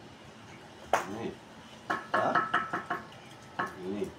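Hollow clay bricks knocking and clinking as they are handled and set in place on a brick wall: one sharp knock about a second in, then a quick run of ringing clinks around two to three seconds in and another knock near the end.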